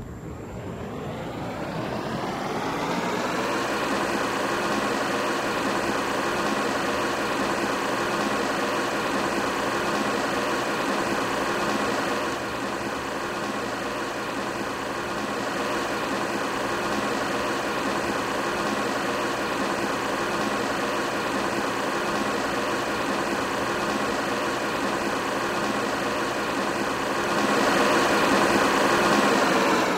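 Ventisilva 50 cm wall fan running: its motor hum rises in pitch as it spins up over the first few seconds, then runs steadily. It gets louder near the end, then begins to wind down.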